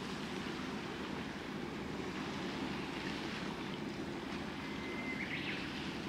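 Steady low drone of a distant patrol vessel running at speed, mixed with the wash of the sea and wind on the microphone. A short high whistle sounds about five seconds in.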